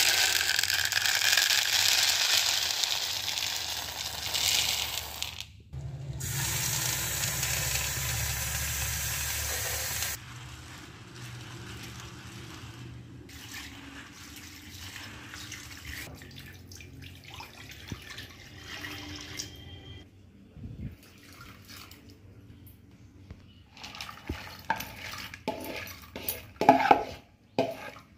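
Tap water running into a plastic bowl of black-eyed peas in two spells, the first about five seconds, the second about four, as the beans are rinsed. Near the end a few sharp clatters as the wet beans are scraped with a spoon from the bowl into an aluminium pressure cooker.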